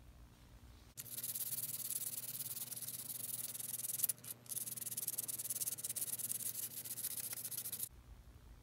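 Copper pipe being rubbed with abrasive paper in quick back-and-forth strokes, a dry scratchy hiss. It starts about a second in, pauses briefly around the middle, and stops near the end.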